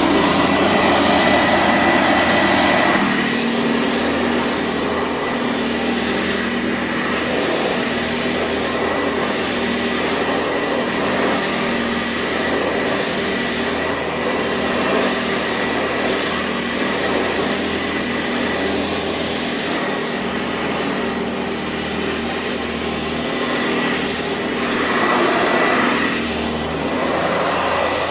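Sanitaire SC679 commercial upright vacuum cleaner running over a rug: a steady motor whine with a constant high tone, its low rumble dropping about three seconds in. It runs on a cracked, worn brushroll belt.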